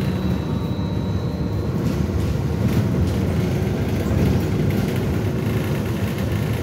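Interior of a BKM 43300D trolleybus under way: a steady low rumble of tyres and running gear, with light rattles. A faint high whine fades out about two seconds in.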